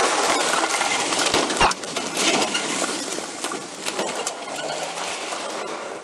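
Rustling, scraping and clatter of a body-worn camera and gear as the wearer hurries over grass and brush carrying a stick-type spike strip, with many small clicks and one sharp knock a little under two seconds in. The noise is loudest at first and eases off toward the end.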